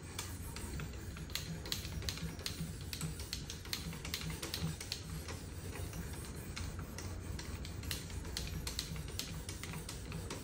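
Abrasive stone of a Work Sharp guided knife sharpener worked in quick short strokes along a clamped knife blade: an irregular run of light ticks and scrapes, several a second.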